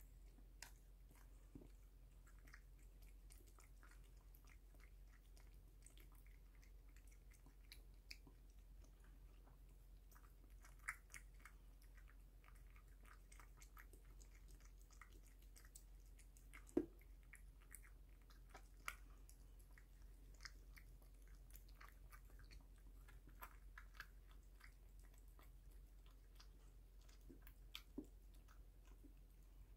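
Cat eating wet food from a bowl: faint, soft chewing and lapping clicks, scattered unevenly, with a few sharper clicks, the loudest a little past halfway.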